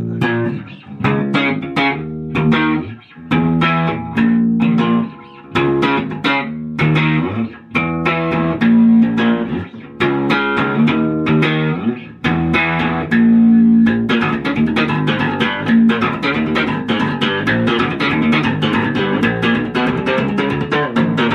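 Electric bass guitar being played: a riff of plucked notes in short repeated phrases with brief gaps, turning into a faster, unbroken run of notes about two-thirds of the way through.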